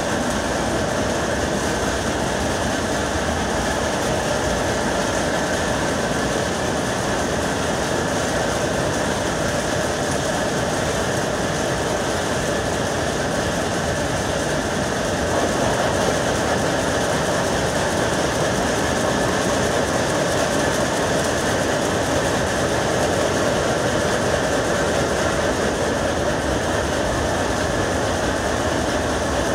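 Power looms weaving saree cloth: a steady, dense mechanical clatter, slightly louder about halfway through.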